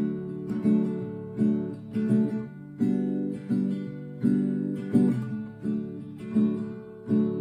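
Acoustic guitar with a capo, playing chords in a steady rhythm, with a fresh attack roughly every three-quarters of a second.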